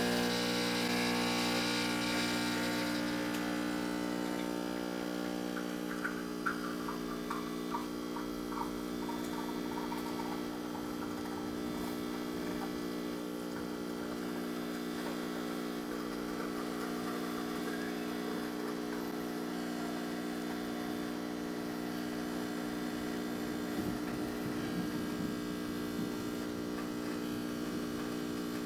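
Vibratory pump of a De'Longhi EC685 espresso machine buzzing steadily while pulling a shot, with a few faint light ticks between about six and ten seconds in.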